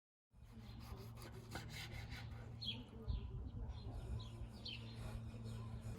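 Small birds chirping several times outdoors, with light rubbing and handling noises over a low steady hum; the sound cuts in abruptly a moment in, after silence.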